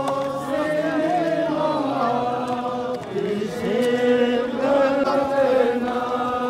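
Men chanting a noha, a Shia mourning lament, in long drawn-out notes that slide slowly up and down.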